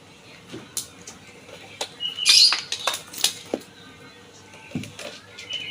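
A string of sharp clicks, knocks and clinks of hard parts and tools being handled, loudest in a brief clatter about two seconds in, with a short high squeak twice.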